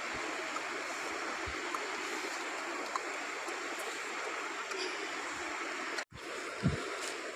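Steady rush of a river running over a stony bed, with a few faint knocks. The sound drops out for an instant about six seconds in.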